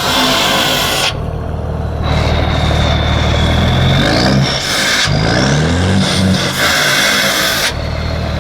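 Heavy diesel truck engine of a Gabardo transport truck running loud, its pitch rising twice as it revs up, with a thin high whine that bends with the revs. Bursts of rushing noise come in at the start and again about seven seconds in.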